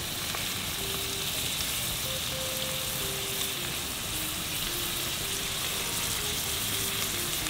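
Chopped onion, sweet pepper and chives frying in margarine and oil in a pan, a steady, even sizzle as the aromatics are sautéed.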